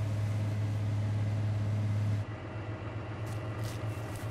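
Diesel farm machinery engine running with a steady deep hum. A little over two seconds in, it cuts to a quieter idling engine, with a few light clicks about a second later.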